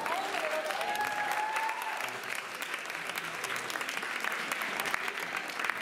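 A crowd of dancers clapping after the dance music stops, with one voice holding a long call over the first couple of seconds.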